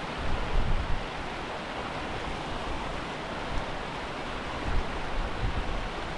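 Small mountain stream tumbling over rocks, a steady rushing hiss, with gusts of wind buffeting the microphone as low rumbles, the strongest near the start and about five seconds in.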